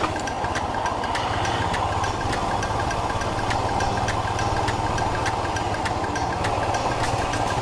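Royal Enfield Himalayan motorcycle engine running steadily under way, with scattered light ticks over the drone.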